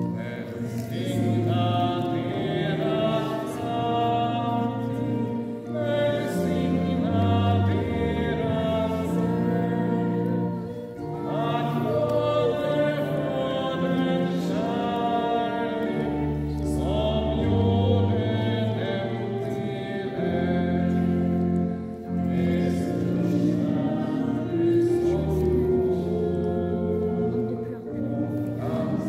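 Music: a wavering sung line over held, slowly changing accompaniment chords.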